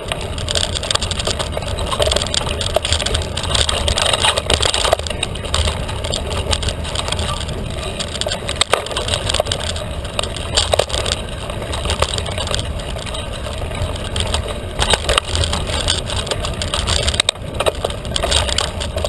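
Felt carbon 29er mountain bike ridden over a rough trail: tyres crunching and the bike rattling with many sharp clicks, over a steady low rumble.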